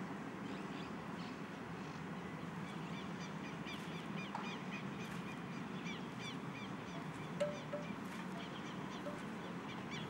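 Outdoor ambience: small birds chirping in quick repeated short notes over a low steady background rumble, with a few brief honks in the second half.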